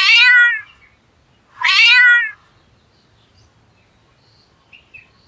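Domestic cat meowing twice, each meow falling in pitch, about a second and a half apart.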